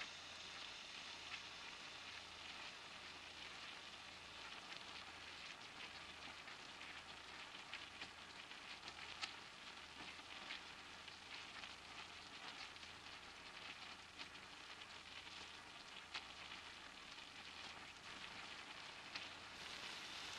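Kachoris deep-frying in hot oil: a faint, steady sizzling hiss broken by scattered small crackles and pops.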